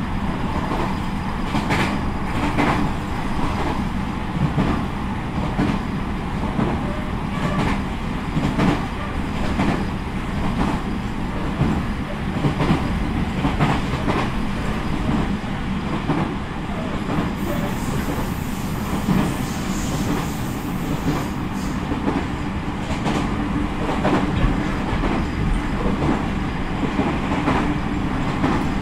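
Running noise inside a JR Central 313 series electric multiple unit at speed: a steady rumble of wheels on rail with scattered clacks over the rail joints.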